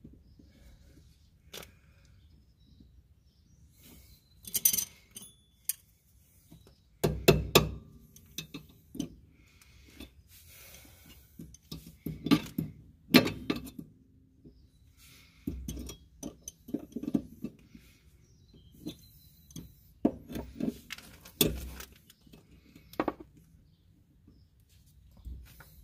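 Irregular metallic clinks, taps and knocks of hand tools and metal parts at the rear ball joint's castle nut while a cotter pin is fitted. The loudest knocks fall about 7 s in and again around 12 to 13 s and 20 to 21 s.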